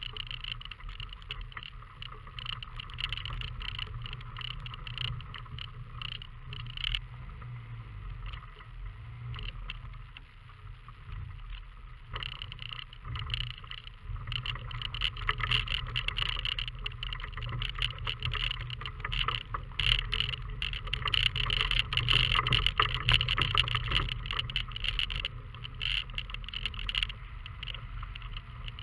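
Fiat Panda 4x4 driving slowly over a rough gravel forest track: a low engine drone under dense rattling and crunching of stones under the tyres. The noise grows louder about halfway through.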